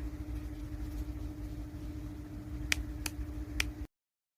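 A motor running with a steady hum over a low rumble, with three sharp clicks near the end before the sound cuts off abruptly.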